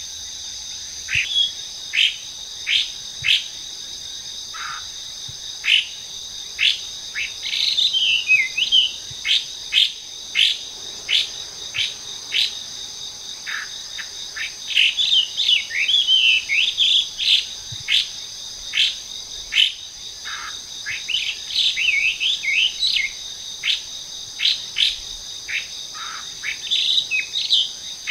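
Hwamei (wambi) calling: a long series of sharp whistled notes that sweep downward, broken several times by short warbling phrases. A steady high insect drone runs underneath.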